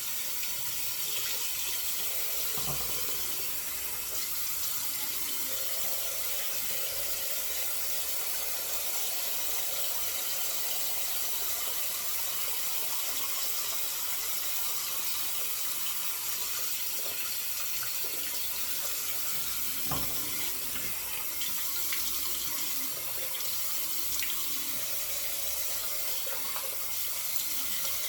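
Bathroom tap running steadily into a sink, used for rinsing after a shave, with a few faint knocks and splashes.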